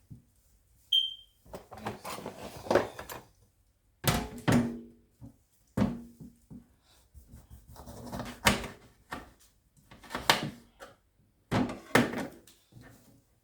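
A run of knocks and clunks from kitchen work, about eight, unevenly spaced, several ringing briefly as if against a metal pot or bowl. There is a brief high chirp about a second in.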